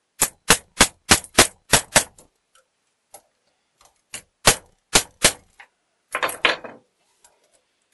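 Hammer striking the steel rivet pins of a window-fitting gear to peen them over: a quick run of about seven sharp metallic blows, about four a second, then after a pause three or four more, and a last quick flurry near the end.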